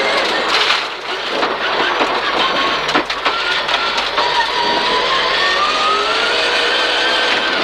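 Peugeot 306 rally car's engine heard from inside the car, easing through a tight left hairpin and then pulling hard out of it, the revs climbing slowly and steadily through the last few seconds. A few sharp clicks and knocks sound in the first three seconds.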